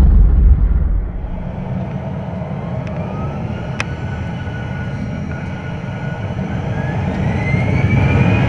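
Jet airliner heard from the cabin on its takeoff roll: a steady deep rumble, with a whine that rises steadily in pitch from about three seconds in and grows louder as the plane speeds down the runway. One sharp click near the middle.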